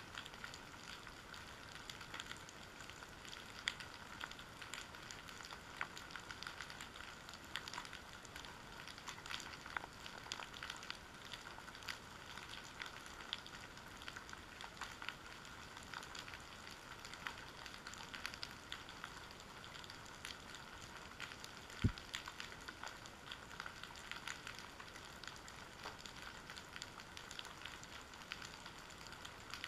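Underwater ambient crackle: a steady, dense patter of fine clicks and pops on the seabed, heard through an underwater camera. A single low thump comes about three-quarters of the way through.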